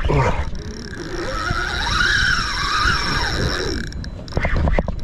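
A 4500-size fishing reel's drag buzzing as a hooked fish runs and strips line against it. The pitch rises to a peak about two seconds in and falls away as the run slows.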